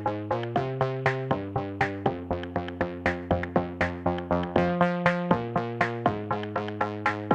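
Background electronic music: a quick, even pulse of plucked synthesizer notes over chords that change every second or so.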